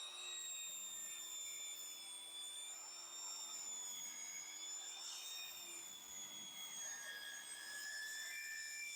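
Table saw running during rip cuts, heard faintly as a steady high whine of several tones that waver slightly in pitch together.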